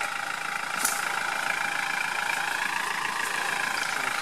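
Off-road 4x4's engine running steadily while the truck sits dug in, nose-down in a mud hole.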